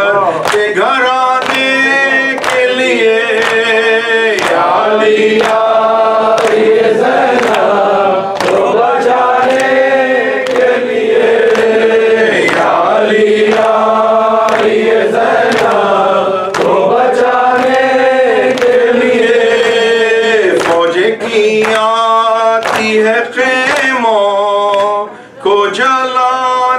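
Male voice chanting a noha, an Urdu mourning lament, into a microphone in long held and gliding lines, with other voices joining and a regular beat of sharp strikes throughout. The chant breaks off briefly near the end.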